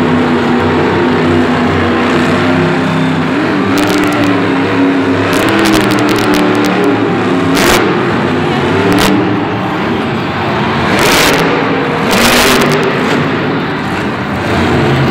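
Grave Digger monster truck's supercharged V8 engine running hard at high revs while the truck balances upright on its rear wheels, the pitch wavering as the throttle is worked. There are several short noisy bursts along the way.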